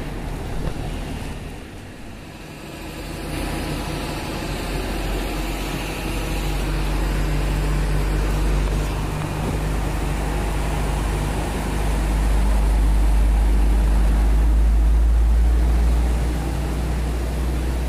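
Box truck engine running as the truck drives through shallow floodwater, its tyres sending up a wash of splashing water. The rumble grows louder about twelve seconds in and is loudest near the end as the truck passes.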